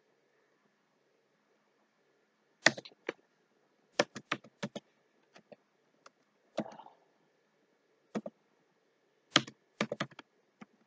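Computer keyboard being typed on slowly: sharp single keystroke clicks in small irregular groups with pauses between them, over a faint steady hum.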